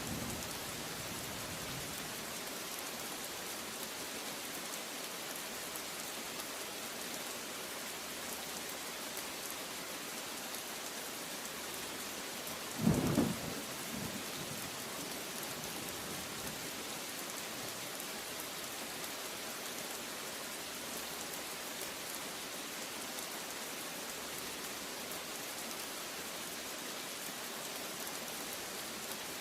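Steady rain falling, an even hiss throughout. A low thunder rumble fades out in the first second, and a brief, loud low thump comes about thirteen seconds in.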